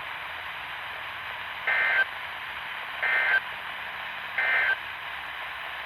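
Weather radio receiver hiss broken by three short bursts of warbling data tones, each about a third of a second long and about a second and a half apart: the SAME digital end-of-message code that closes a NOAA Weather Radio alert, here a Required Weekly Test.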